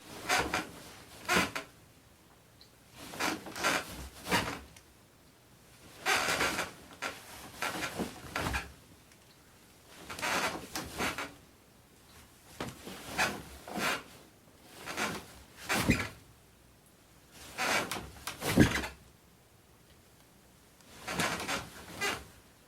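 Bed with a spring mattress and a wooden frame creaking and shifting as someone moves and bounces on it. The creaks come in short bouts of a few strokes every two to three seconds, with quiet gaps between; the loudest is about two-thirds of the way through.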